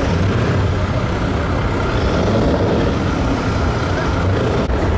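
Steady low rumble of heavy truck engines running.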